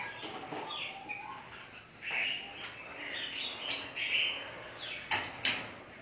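Caged songbirds in an aviary chirping, with wings fluttering. Two sharp clicks come close together about five seconds in.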